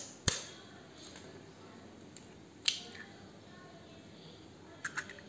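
Hen's egg cracked with a knife blade tapped against its shell: a sharp tap just after the start, a smaller crack about two and a half seconds in, and faint clicks near the end.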